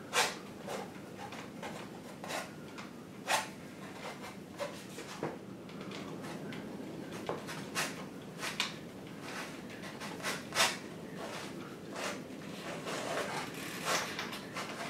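Irregular short scrapes and dabs of painting tools on canvas and palette, paint being mixed and worked in with brush or palette knife, one stroke every second or two.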